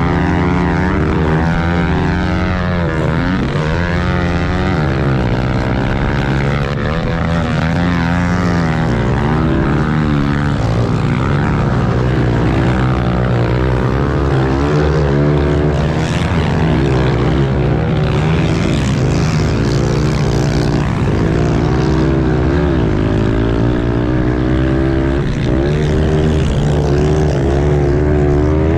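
Pitbike engines, small single-cylinder four-strokes, revving up and down continuously, their pitch rising and falling with throttle and gear changes as the bikes ride the track.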